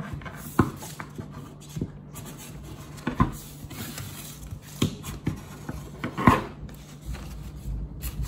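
Scissors snipping and handling a sheet of construction paper on a table: scattered sharp clicks, rustles and knocks, the loudest about six seconds in, over a faint steady low hum.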